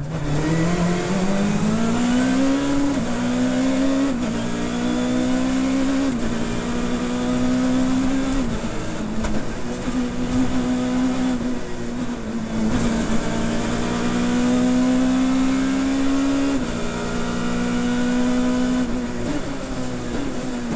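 Rally car engine heard from inside the cockpit, accelerating hard and shifting up from second to fourth, with quick drops in revs about three and four seconds in. It then runs at high revs in fourth gear, with the revs dropping again near the end as the driver lifts and shifts down.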